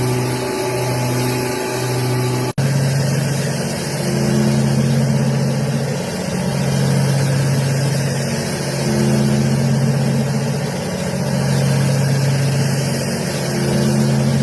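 CNC milling machine cutting metal with a high-feed indexable-insert milling cutter: a steady low hum with overtones that swells and eases every two seconds or so as the cutter passes through the work. It cuts out for an instant about two and a half seconds in.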